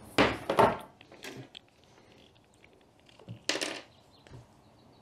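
Plastic bucket being handled and turned: short scrapes and rubs of the plastic, a loud cluster in the first second and another about three and a half seconds in.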